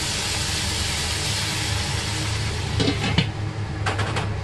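Broccoli, pumpkin and carrot sizzling and hissing in a hot nonstick wok, with a little water just added that turns to steam. A few short metal clinks near the end as a stainless steel lid is set on the wok.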